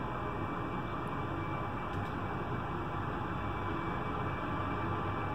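Distant helicopter hovering: a steady, even engine and rotor noise with no distinct events.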